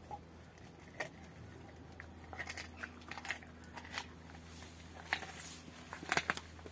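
Rottweiler chewing a raw pork bone: irregular crunches and clicks of teeth on bone, sparse at first and busier from about two seconds in, loudest near the end.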